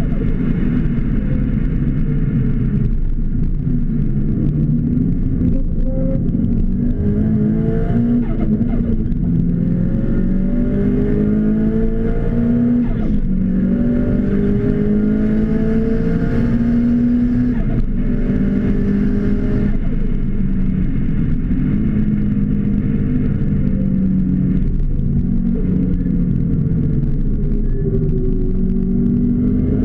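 Car engine heard from inside the cabin under hard acceleration. Its pitch climbs and drops back several times in a row as it shifts up through the gears, then runs lower and less even.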